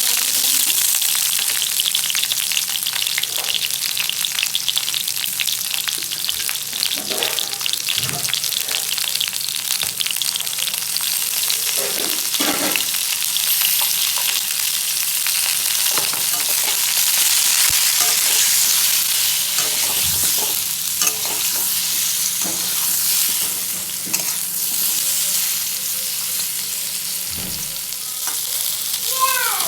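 Food sizzling steadily as it fries in a pan, with a spatula stirring and scraping the pan again and again.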